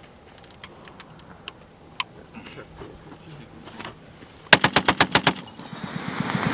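Browning M2 .50 calibre heavy machine gun: a few faint metallic clicks of handling, then about four and a half seconds in a short rapid burst of around nine rounds, followed by a rising rumble.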